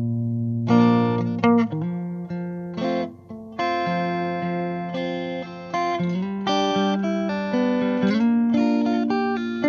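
Background music played on guitar: plucked notes and chords, each ringing and fading, with a brief pause about three seconds in.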